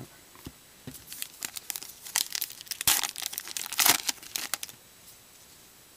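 A foil trading-card pack wrapper being torn open and crinkled, a dense run of crackles over about four seconds with two louder rips near the middle.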